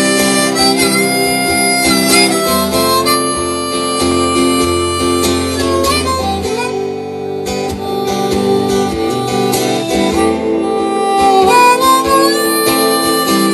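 Live acoustic music: a harmonica plays a slow melody of long, held notes over acoustic guitar accompaniment.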